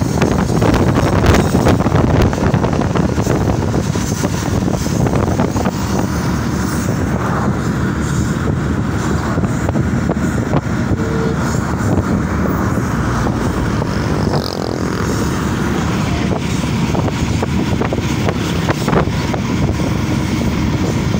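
Hazara Express passenger train running, a steady loud rumble of the moving train with wind noise.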